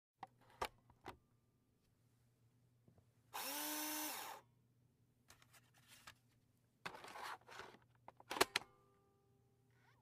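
Computer disk drive taking a disk and spinning it: a few sharp clicks as the disk goes in, then about a second of motor whirring that rises in pitch and levels off as it spins up. More short whirs and clicks follow, with a loud cluster of clicks near the end.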